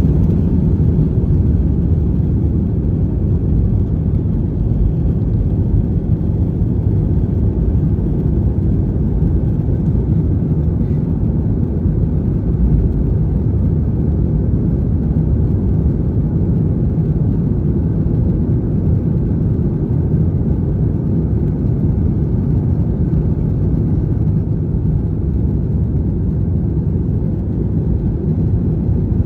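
Airbus A320-200 jet engines at takeoff power, heard from inside the passenger cabin as a steady, deep engine noise during liftoff and climb-out.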